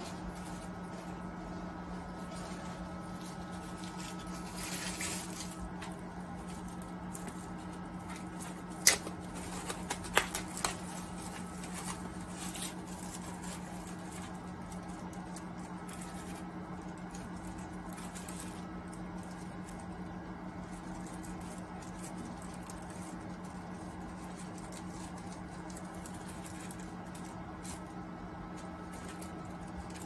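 Microwave oven running with a steady low hum. A few sharp clicks stand out about nine to eleven seconds in.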